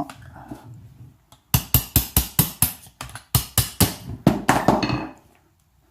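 Hammer tapping a punch to drive out a stuck stock pin on an airsoft rifle: a rapid series of sharp taps, about four or five a second, starting about a second and a half in and stopping near five seconds.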